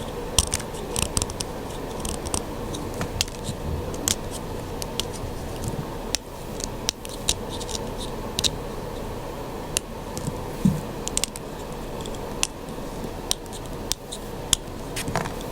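Purple sidewalk chalk being shaved down: irregular crunchy scrapes and sharp crackling ticks as the blade bites into the chalk, a few strokes a second.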